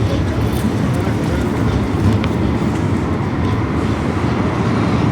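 Tram running on its rails: a steady low rumble.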